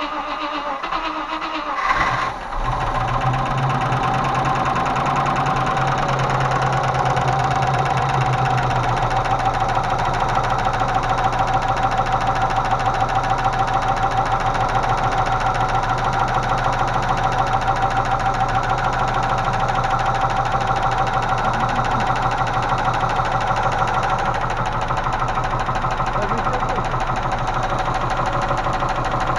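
Range Rover Classic's 3.5-litre Rover V8 is cranked with the choke out, catches about two seconds in and settles into a steady idle. The idle carries a fast, even ticking from the hydraulic lifters, the knock the owners are hunting, which they put down to lifters sinking in several cylinders.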